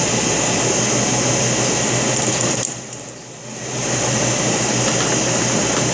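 Light metallic clicks from butterfly knives being handled, over a steady noise with a low hum. The noise dips away briefly a little before the middle.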